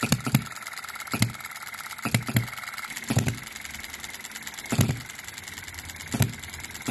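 OKMO B01 model hit-and-miss engine, a 3.4 cc four-stroke petrol replica of the Ball Top Monitor, running cold at the start of a run. About eight sharp firing pops come at uneven spacing, some in quick pairs and some with gaps of over a second as it coasts between hits, with a faint fast ticking in between.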